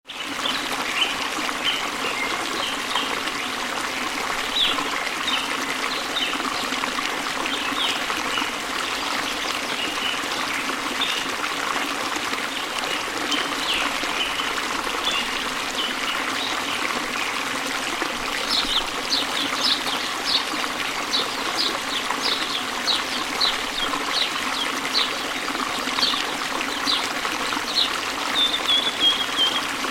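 Water trickling and splashing in a steady flow, with birds chirping over it. About two-thirds of the way through, a bird begins a quick run of repeated high notes that ends in a short trill.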